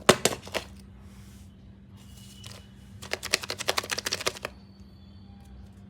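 Plastic-foil wrapper of a Kinder Joy egg crinkling and crackling as it is handled and torn open: a few sharp crackles at the start, two brief rustles, then a dense run of rapid crackling for about a second and a half near the middle.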